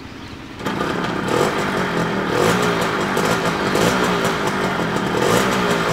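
Small single-cylinder two-stroke motorcycle engine of a 1974 Yamaha L2G (97 cc) running. It comes in suddenly about half a second in and holds a steady note with small rises and falls in speed.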